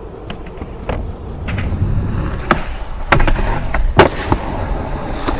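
Skateboard wheels rolling with a steady rumble, broken from about two and a half seconds in by several sharp clacks of the board striking the ground.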